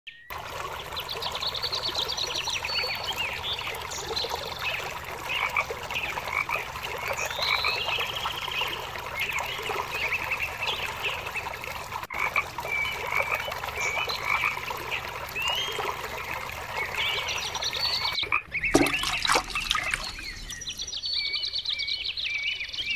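A chorus of frogs croaking, with many short calls overlapping. About eighteen seconds in, the chorus breaks off. A brief louder burst of sound follows, then sparser high chirping.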